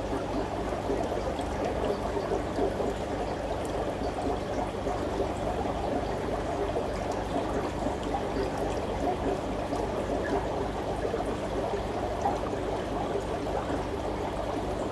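Aquarium water trickling steadily, with a low hum underneath.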